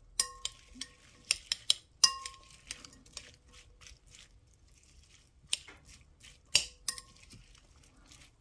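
A metal utensil stirring chopped onion and chiles in a glass bowl, clinking against the glass in irregular clusters, each clink leaving a brief ringing tone. The clinks thin out for a couple of seconds in the middle, then pick up again.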